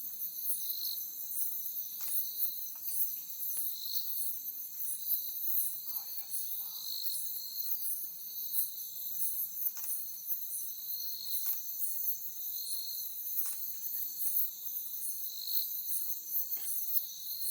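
Night insects such as crickets chirping: several kinds at once, a steady high trill with a fast pulsing above it and another insect's short chirp repeating every second or two.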